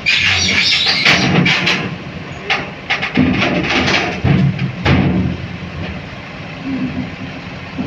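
SANY crawler crane creeping along a lowbed trailer deck on its steel tracks, with its engine running. For the first two seconds or so the tracks give a loud grinding squeal, followed by a run of sharp clanks and thuds from the track plates, then steadier, quieter running.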